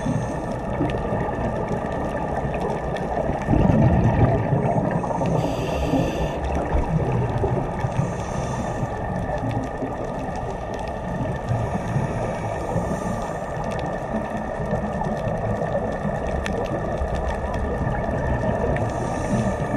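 Underwater sound of a scuba diver breathing through a regulator: a hiss and a rush of bubbling exhaust every few seconds, over a steady underwater rumble with a faint continuous hum.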